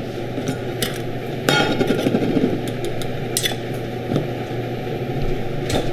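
Stainless-steel cookware clinking and knocking as a stainless bowl of syrup is poured and scraped over roselle calyxes in a saucepan. A denser scraping stretch runs from about a second and a half in to about three seconds, with single sharp clinks before and after. A steady low hum lies underneath.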